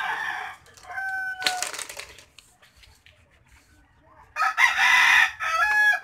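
A rooster crowing: one long, loud crow starting about four and a half seconds in, with a shorter, fainter crowing call about a second in.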